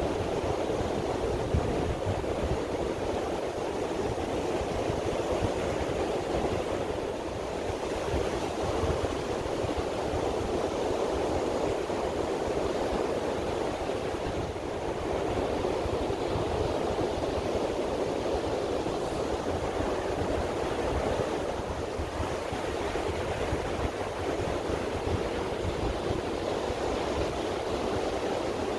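Ocean surf breaking on a sandy beach: a steady, continuous wash of noise.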